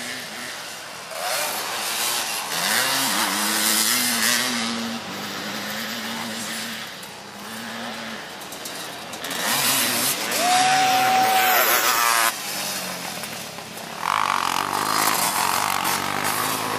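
Racing three-wheeler (ATC) engines running hard on a dirt motocross track, with several buzzing engine notes rising and falling as riders rev, shift and pass. One high note holds for over a second about two-thirds of the way through.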